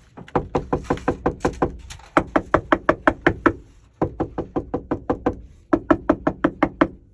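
Rapid knocking in several quick runs on a 3rd-gen Camaro's sheet-metal body, now lined with butyl sound-deadening mat, demonstrating how the mat damps the metal.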